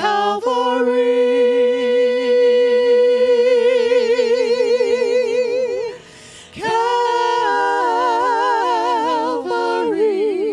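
A women's vocal trio sings in harmony through handheld microphones. One long held chord wavers with vibrato for about five seconds. After a short break they sing a new phrase with shifting harmony.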